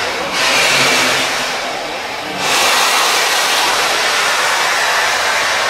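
Steam locomotive No. 5819 blowing steam out of its open cylinder drain cocks: loud hissing in two long blasts, the second starting about two and a half seconds in.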